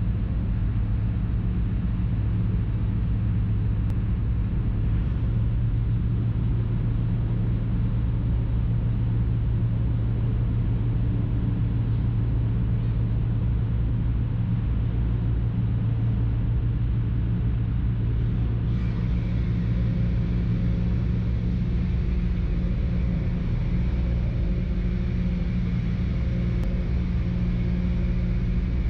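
A ferry's engine drones steadily as heard from aboard, a deep low hum. About two-thirds of the way in, a higher steady whine and a hiss join the drone.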